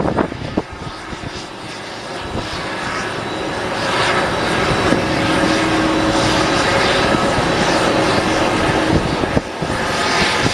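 Jet airliner engines running, the noise swelling over the first few seconds, then holding steady with a whining tone before easing off near the end.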